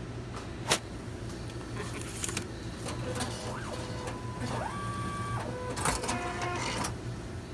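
ATM cash dispenser counting out and presenting banknotes: a sharp click about a second in, then motors whirring with rising and falling pitch and further clicks, over a steady hum.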